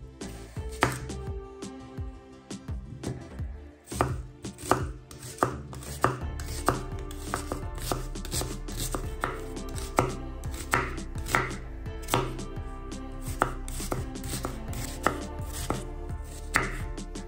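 Chef's knife dicing an onion on a wooden cutting board: sharp knocks of the blade striking the board, a few at first, then a steady rhythm of about three every two seconds from about four seconds in.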